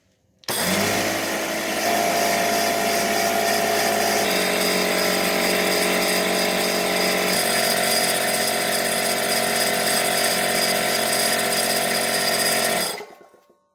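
Porter Cable C2002 pancake air compressor's motor and pump starting up and running loudly and steadily to build pressure, then shutting off near the end.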